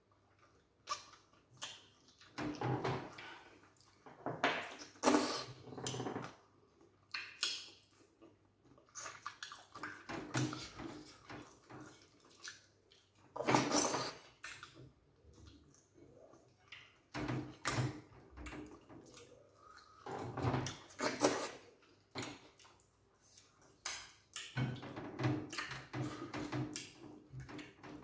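Two people eating starch swallow with okra and banga soup by hand, close to the microphone: wet smacking, slurping and finger-sucking in irregular bursts with short pauses.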